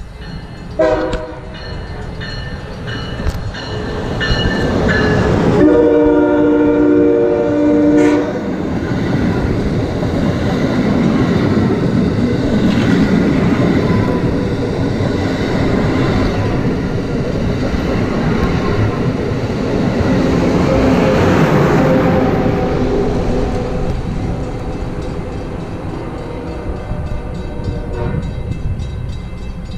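Amtrak Acela Express high-speed trainset sounding its horn: a short note about a second in, then one long blast from about six to eight seconds in. It then passes close by with a steady loud rush of wheels on rail, easing off near the end.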